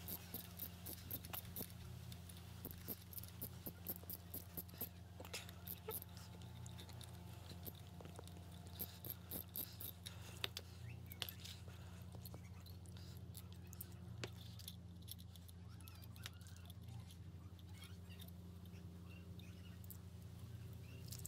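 Light metallic clicks and taps of small parts and a hand tool being handled on a Honda XL250 cylinder head during dismantling, frequent for about the first half and sparse after, over a steady low hum.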